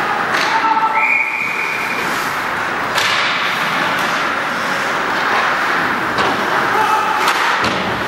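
Ice hockey play on a rink: several sharp cracks of sticks and puck hitting boards over a steady wash of skating and arena noise.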